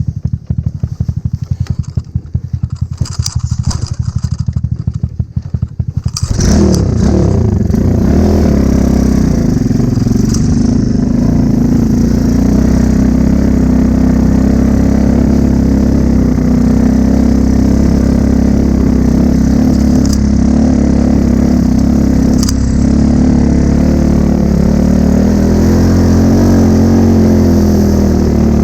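Honda Cub's small single-cylinder engine idling with quick, even pulses. About six seconds in it pulls away and then runs steadily under way, its pitch rising and falling gently.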